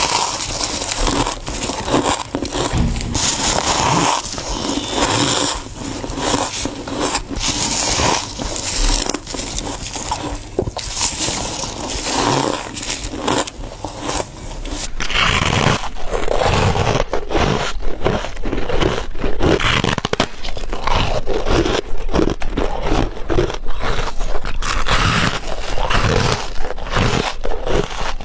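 Close-up crunching bites and chewing of thick, fluffy freezer frost, many sharp crackling crunches in quick succession, growing fuller and lower from about halfway through.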